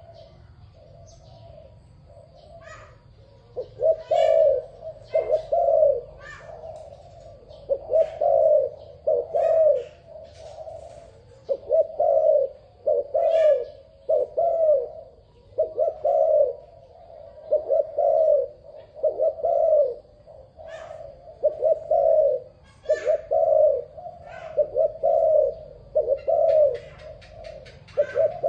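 A dove cooing repeatedly in phrases of two or three low notes, faint at first and loud from about four seconds in. Other small birds chirp thinly in the background.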